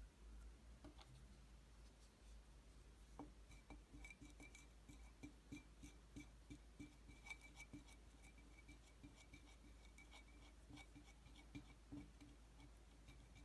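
Polystyrene beads in white slime being squeezed and pressed, giving faint crackling and a quick string of small clicks and pops.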